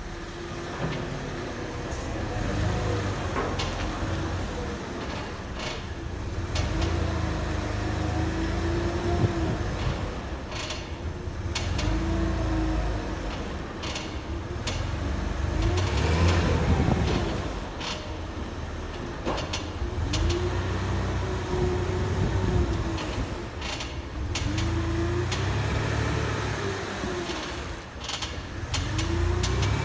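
Squeaking and clicking noise from a Mercedes-Benz W163 ML320: a squeal that rises and then falls in pitch comes back about every four seconds, over a low rumble that swells with it, with sharp clicks in between.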